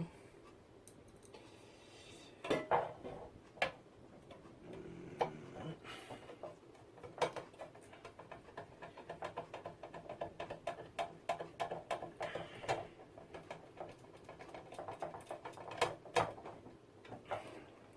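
Small metal clicks, taps and scrapes of screws being handled and driven by hand into a computer case's SSD mounting, with a run of rapid small ticks in the middle.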